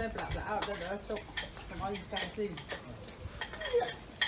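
A cat eating rice and fish from a ceramic plate: an irregular run of small clicks and clinks as it chews and its mouth knocks against the plate.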